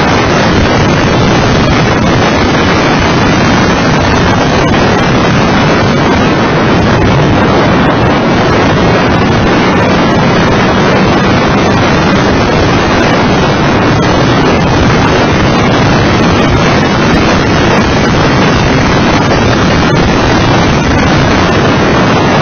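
Loud, steady wind buffeting on an onboard microphone, with the engine and road noise of a Mitsubishi FTO GPX's 2.0-litre V6 lapping a race circuit at speed underneath.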